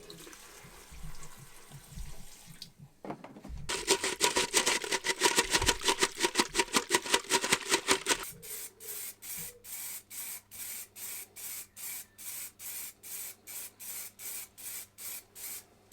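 A motorcycle chain being cleaned in a jug of petrol to strip the grease, with rhythmic swishing strokes. The strokes come about four or five a second and loud for a few seconds, then slower and quieter at about three a second.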